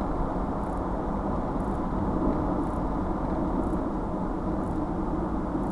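Steady road and engine noise of a vehicle cruising at speed, heard from inside the cab through a dashcam's microphone. A very faint high tick comes about once a second.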